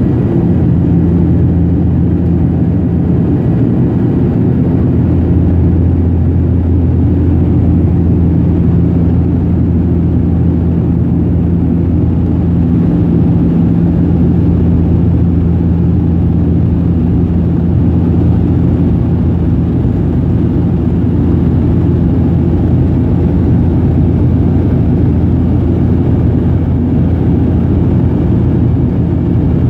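Steady, loud cabin drone of a De Havilland Canada Dash 8's twin turboprop engines and propellers during the climb after take-off, heard from inside the cabin as a deep, even hum.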